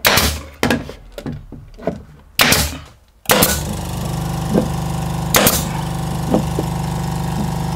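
Pneumatic nailer firing a series of sharp shots into OSB board. About three seconds in, an air compressor starts up and runs with a steady, pulsing drone under the later shots.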